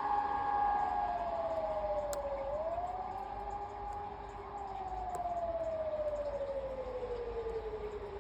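Swiss civil defense sirens, electronic units, sounding in a wail. The main tone falls, rises again about three seconds in, then falls slowly through the rest. A second siren holding a steady tone fades out about a second in.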